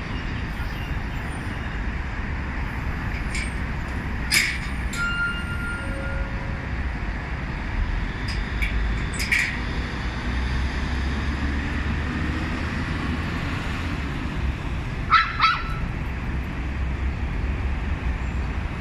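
Small Pomeranians yapping in a few short, sharp barks: one about four seconds in, another around nine seconds, and a quick louder double yap about fifteen seconds in, over a steady low rumble.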